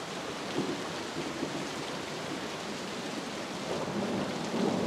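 Steady rain falling, an even hiss, with a low rolling rumble that swells about four seconds in.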